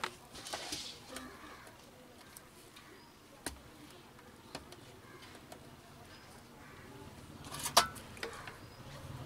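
Small clicks and rustles of wires being handled and fitted to the terminals of a switch, with a few sharp clicks, the sharpest near the end.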